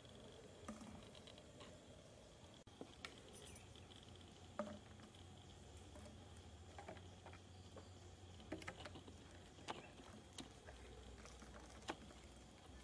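Empty plastic water bottle handled by a monkey: faint, scattered crinkles and clicks of the plastic over a low steady hum.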